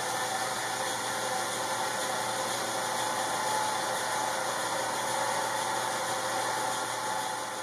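Steady hum and hiss of a workshop machine motor left running, even and unchanging throughout.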